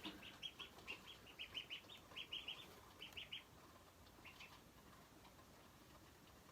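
Ducklings peeping faintly: short high chirps in quick runs, stopping about three and a half seconds in, with a couple more a second later.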